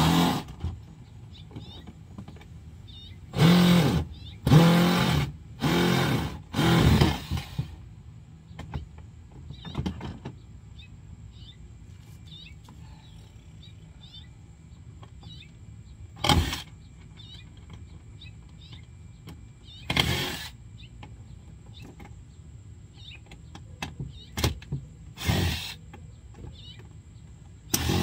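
A cordless power drill run in short bursts of under a second, about eight times with pauses between, as screws are backed out of a plastic ride-on toy car.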